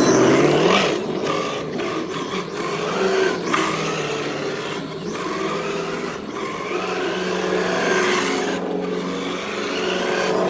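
Simulated engine sound from the sound-effects module of an E5 monster-truck RC car, rising and falling in pitch as the throttle changes, with a few short breaks.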